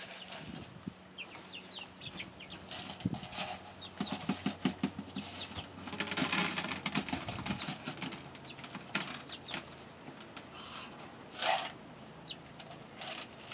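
Hens clucking and chirping in short scattered calls, with knocks and rustling as plastic buckets are picked up and set down on wood-shaving bedding.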